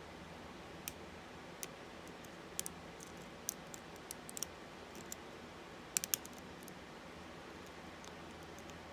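Small, sharp metallic clicks of a hook pick and tension tool working the pins inside an Abus 64TI padlock during lock picking. The clicks come irregularly over several seconds, with a tight group of three about six seconds in.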